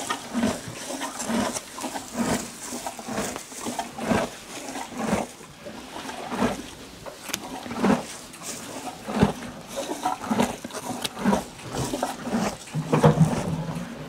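Percheron draft horse chewing hay: a steady, rhythmic crunching of about one and a half chews a second.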